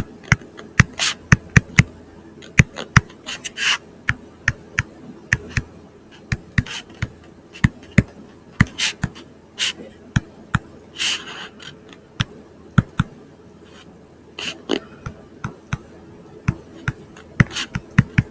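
Stylus tapping and scraping on a tablet screen during handwriting: irregular sharp clicks, often several a second, with short scratchy pen strokes between them, over a faint steady hum.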